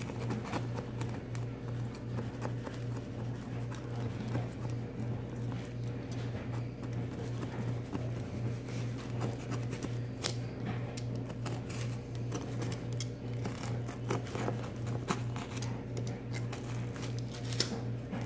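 A small craft blade scraping and cutting around the eye opening of a hardened paper clay pumpkin shell: irregular light scratches and clicks, with a sharper click about ten seconds in and another near the end, over a steady low hum.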